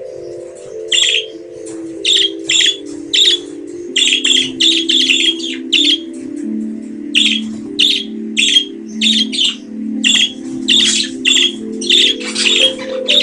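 Budgerigars chirping: short, sharp calls coming in quick clusters, several a second, over a bed of sustained low musical notes that step slowly downward.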